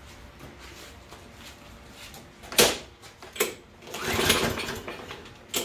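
Recoil starter cord on a Kohler push-mower engine pulled a few times in the second half, each pull spinning the engine over with a short mechanical rattle but no firing. It does not catch even with brake cleaner sprayed into the carburetor, which points to a lack of spark rather than fuel.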